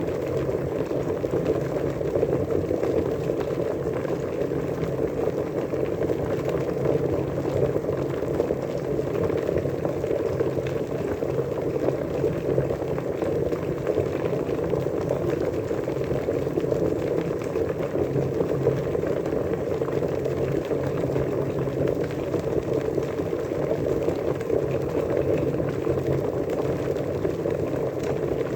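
Water boiling steadily, a dense, continuous bubbling that stays even throughout.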